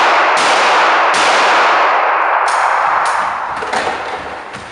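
Handgun shots fired in quick succession, about five sharp cracks in under four seconds. Their echoes off the hall walls merge into a continuous rushing wash that dies away near the end.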